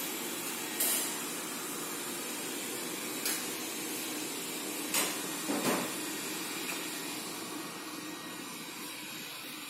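A steady hiss, like a running machine or air blowing, with four short clicks or knocks: about a second in, at three seconds, and twice around five seconds.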